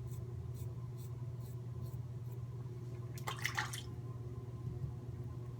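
Merkur 37c safety razor with a Derby blade faintly scraping through lather and stubble in short, even strokes, over a steady low hum. About three seconds in comes a brief splash of water, typical of the razor being rinsed.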